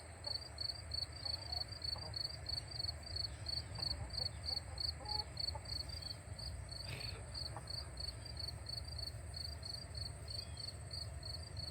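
Insects chirping in an even rhythm, about three high pulses a second, over a steady high buzz and a low rumble.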